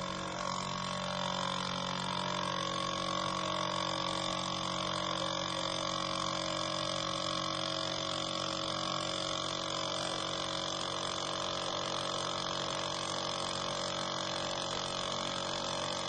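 Nespresso Inissia capsule machine dispensing: its vibration pump buzzes steadily while liquid trickles into the cup.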